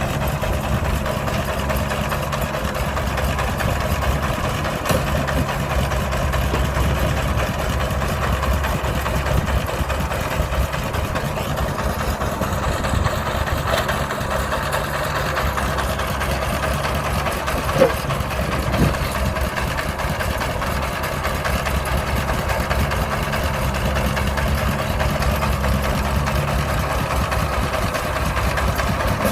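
Engine of heavy farm or earthmoving machinery running steadily, with one brief sharp click a little past halfway.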